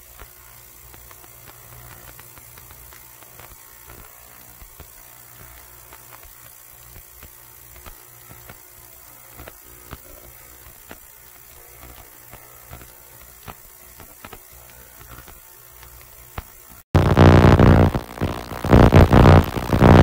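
Ultrasonic jewelry cleaner running: a faint steady hum with a thin hiss and small scattered clicks. About seventeen seconds in, it cuts abruptly to a much louder steady drone with a buzzing edge.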